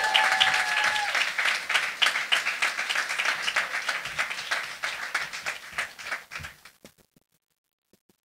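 Audience applauding, the clapping thinning out and stopping about seven seconds in.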